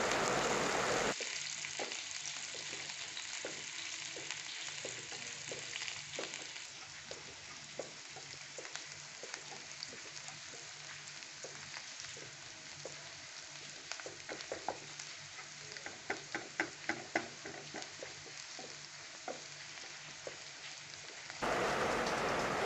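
Chopped onion, garlic and coriander frying in oil in a non-stick pan, stirred with a wooden spatula that taps and scrapes against the pan. A quicker run of louder taps comes about two-thirds of the way through.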